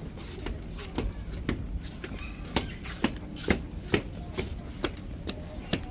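Footsteps of someone walking at about two steps a second, each a short sharp click, over a low steady rumble.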